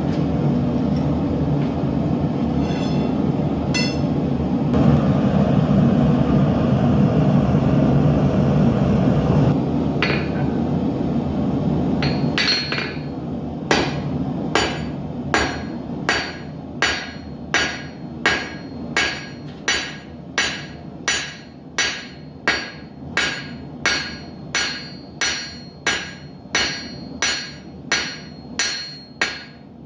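A steady roar, likely the gas forge's burner, for the first twelve seconds or so. Then a blacksmith's hammer begins striking steel on an anvil in an even rhythm of about one and a half blows a second, each blow ringing, as an arrowhead is forged.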